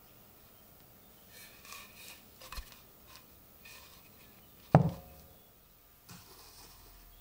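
Gloved hand handling a steel axe with a wooden handle: light rustling and small knocks, then one sharp knock a little over halfway through as the axe is set down on a cloth-covered table, followed by a fainter knock.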